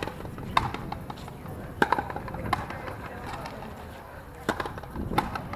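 Frontenis rally: a rubber ball struck by rackets and smacking off the front wall and court floor, a string of sharp cracks at uneven intervals, about five or six loud ones.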